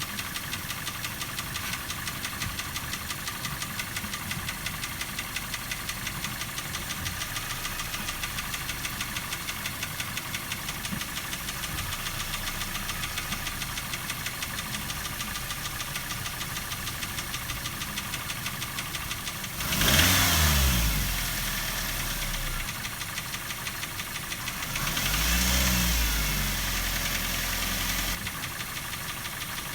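Daihatsu Terios 1.5-litre four-cylinder engine idling with a rapid, even knock, revved sharply twice: briefly about two-thirds of the way in, then held for a few seconds near the end. The knock is one that the mechanic sets out to trace first to the valve clearances.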